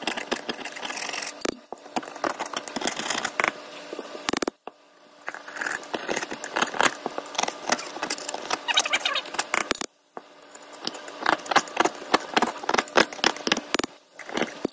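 Flat-tip screwdriver scraping and chipping vinegar-loosened rust off a corroded metal trowel, in quick, irregular scratches and clicks. The scraping breaks off briefly twice.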